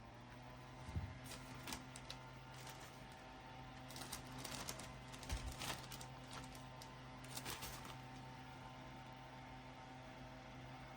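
Small Pedrain USB mini fan's motor spinning up and then running with a steady hum. Scattered clicks and rattles of the fan being handled come through during the first eight seconds or so.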